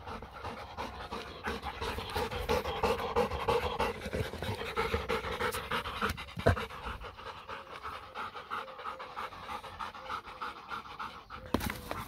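German shepherd cross dog panting fast and hard, close by, with one brief thump about halfway through.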